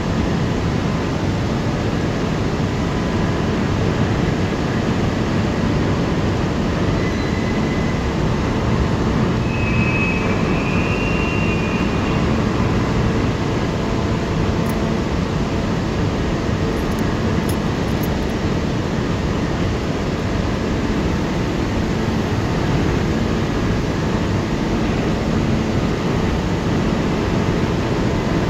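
Overhead grab crane with a clamshell bucket travelling on its rails, a steady loud rumble of its drive motors and wheels, with a faint high squeal briefly about ten seconds in.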